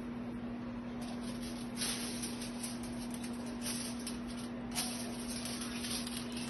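Aluminium highlighting foils being handled and folded: intermittent crinkling and rustling, with sharper crackles about two and five seconds in, over a steady hum.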